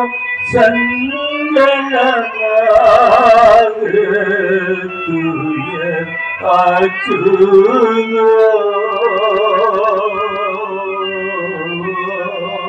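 A man singing a slow, wavering melody over sustained instrumental accompaniment.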